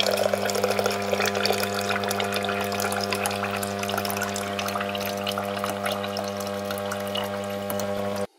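Refrigerator door water dispenser running, a stream of water pouring into a glass with a steady electric hum from the dispenser. It cuts off suddenly near the end.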